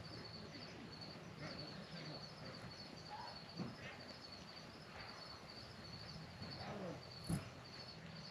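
Insects chirping in a steady, high, evenly pulsing rhythm, with one sharp click about seven seconds in.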